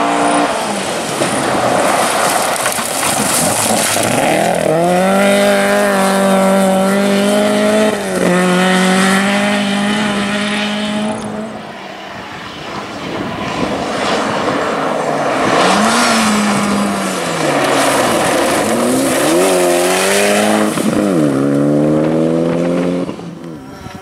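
Rally car engines at full throttle on a gravel stage. The first climbs in pitch and holds high, with a brief lift about eight seconds in. After a break, a second car's engine rises and falls through several lifts and gear changes, then fades near the end.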